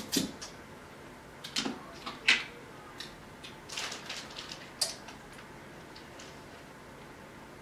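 Eating sounds: scattered short clicks and crackles of seafood shells being picked apart by hand, with wet mouth sounds of chewing. The loudest is a single sharp crack a little over two seconds in, and the sounds thin out after about five seconds.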